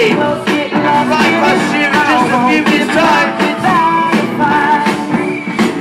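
Music with a sung vocal, played loudly through a parade float's loudspeakers.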